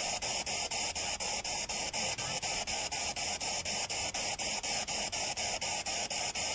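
Spirit box sweeping through radio channels: a steady hiss of static broken by short dropouts about five times a second as it jumps from channel to channel.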